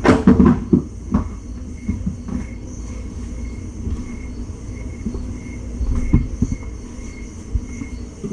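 A person moving about a room: loud knocks and handling noise at the start, then scattered footstep thumps, with another group of thumps about six seconds in, over a steady low rumble.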